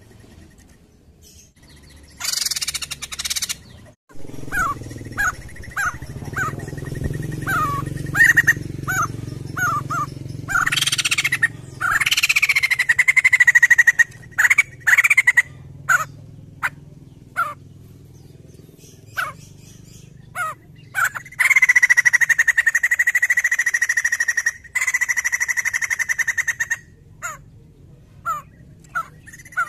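White-crested laughingthrush singing loudly: a quick run of short, falling notes, then long held whistles, with scattered clicks between phrases.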